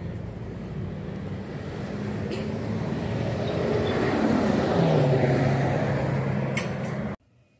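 A motor vehicle's engine running close by and growing louder, its engine note dropping about five seconds in, then cutting off suddenly near the end.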